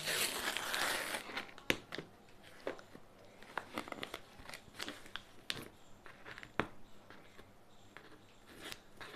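Packing tape being picked at and peeled off a cardboard TV carton: a rustling tear in the first second or so, then scattered sharp clicks and crinkles of tape and cardboard.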